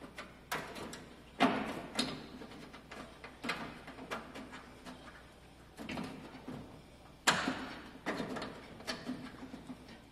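Irregular clunks and knocks of metal parts being shifted and struck by hand during a fender fit-up, with scraping between them; the sharpest knocks come about a second and a half in and again about seven seconds in.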